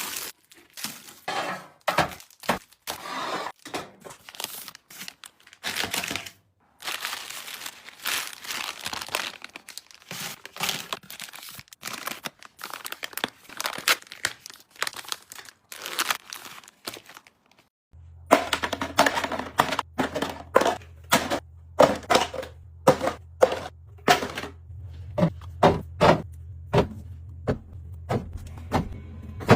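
Close-up handling of packaging and small objects: crinkling, tearing, taps and clicks in an irregular stream. About two-thirds of the way through, a steady low hum starts up under the continuing taps.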